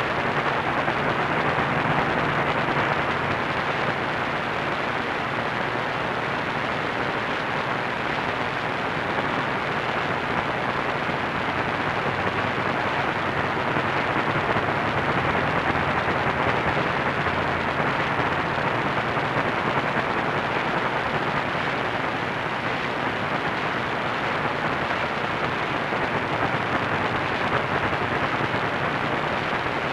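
AM radio receiver tuned to a distant station on 1490 kHz, giving a steady hiss of static with no clear programme audio: the weak long-distance signal is buried in noise.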